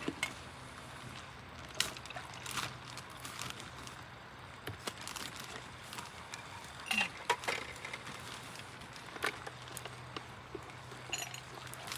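Scattered light clinks and small knocks of glassware, ice and bottles being handled while a highball is mixed, over a faint steady low hum.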